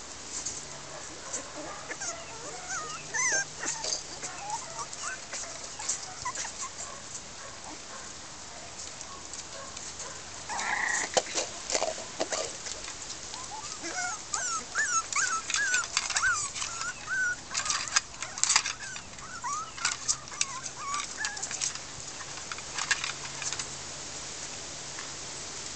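Miniature Pinscher puppies whining and squealing in short high runs while they play, over many quick clicks and scuffles.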